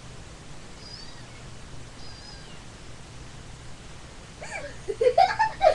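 Quiet low hiss, then loud, bending meow-like calls about four and a half seconds in.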